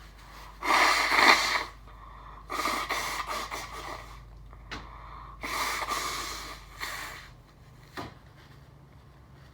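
A man blowing his nose hard three times, each blow a long forceful blast, the first the loudest, clearing his nose after a sneezing fit brought on by Chhinkni nasal snuff.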